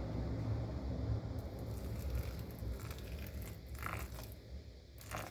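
Gritty crunching and scraping of garri granules being worked in a bowl of water, with a few small clicks, fading toward the end.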